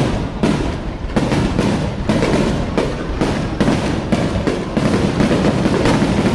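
Fireworks going off in quick succession: a dense barrage of booms and crackling bangs, several a second, over a continuous rumble.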